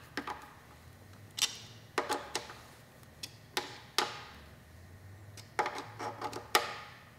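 Scattered sharp metal clicks and taps, some singly and some in quick clusters with pauses between, from a small hand driver working the clamp screws of a billet aluminium clutch perch on a motorcycle handlebar as they are snugged up.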